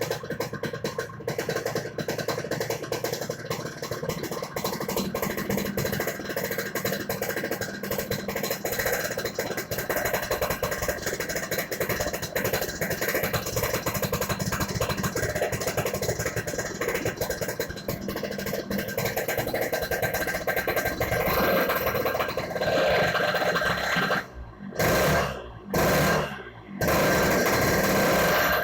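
Yamaha RX-King two-stroke single-cylinder motorcycle engine running, its exhaust 'snoring' yet crisp. It holds higher revs over the last several seconds, and the revs drop sharply three times near the end.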